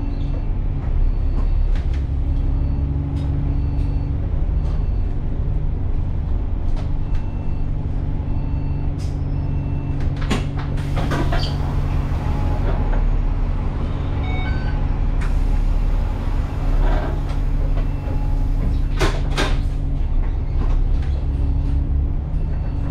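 Inside a Kowloon Motor Bus Alexander Dennis Enviro400 double-decker standing at a stop, the engine runs with a steady hum. Clicks and knocks of the doors opening come about ten seconds in and of the doors closing about nineteen seconds in, with a hiss in between.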